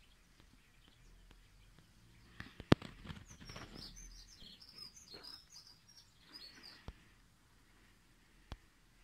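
Starling singing: a run of quick, high squeaky chirps and whistles, with a sharp click just before it starts and a couple of fainter clicks later.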